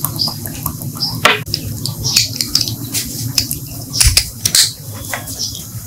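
Small metal pistol parts clicking and tapping as they are handled and fitted into the frame, several separate sharp clicks over a steady low hum.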